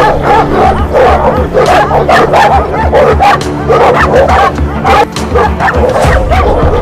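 Several dogs barking and yelping over one another in a dense, continuous chorus of short calls, with background music underneath.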